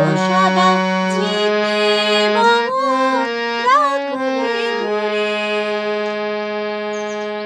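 Harmonium playing a slow melody note by note over a held low note, settling on a long sustained note from about five seconds in.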